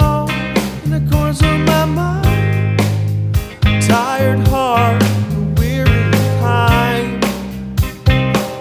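Background music: a band playing a song with a steady drum beat, bass and guitar.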